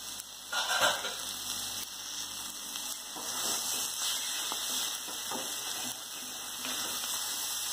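Chicken pieces in a thick masala sizzling in a metal kadai as they are stirred and scraped around the pan with a spatula.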